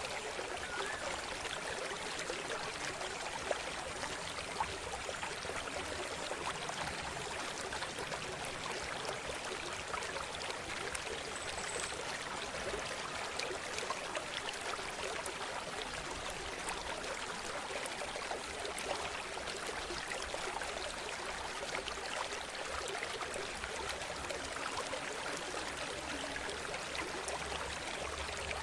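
River water running and trickling over rocks: a steady, even rush flecked with small splashes.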